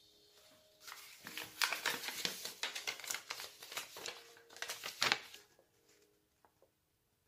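A sheet of paper rustling and crinkling as it is unrolled and unfolded by hand, in quick crackles that stop a little after five seconds in.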